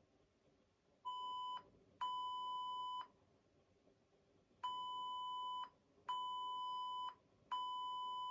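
Censor bleeps: five steady, high-pitched beeps separated by silence. The first is short and the others last about a second each. They are played in place of the audio of the missed shots, typical of bleeping out swearing.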